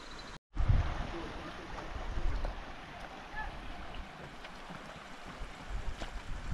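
Steady rush of a mountain river, with wind buffeting the microphone in low gusts. The sound drops out completely for a moment about half a second in.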